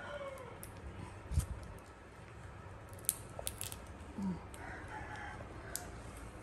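Faint chicken calls in the background, one short call about four seconds in, with a few small clicks.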